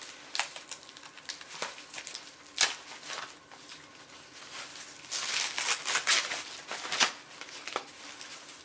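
Plastic packaging crinkling and rustling as it is handled, with scattered sharp crackles, a loud snap a little before three seconds in, and a denser run of crinkling about five to seven seconds in.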